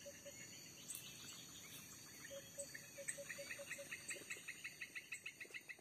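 Tropical swamp-forest insects buzzing steadily at a high pitch. About two seconds in, an animal call joins: a quick run of low repeated notes, alongside a rapid series of higher pulsing notes, about five a second, that keeps on.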